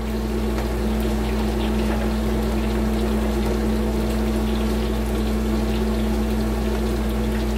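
Steady sizzling of food frying in oil on a stovetop, with a ladle stirring a pot of thickening peanut sauce, over a steady low hum.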